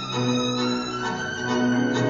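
Recorded tango music, with violins carrying a sustained melody over the ensemble.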